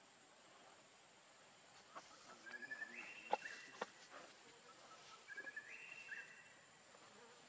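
Two short, faint, high-pitched animal calls about three seconds apart, each a few flat notes stepping up and down in pitch. Two sharp clicks fall between them, the loudest sounds here.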